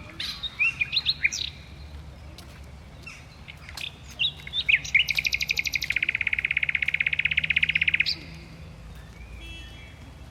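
Shooting-gallery game sounds: a run of loud bird-like chirps, then a fast, even trill lasting about three seconds that cuts off suddenly.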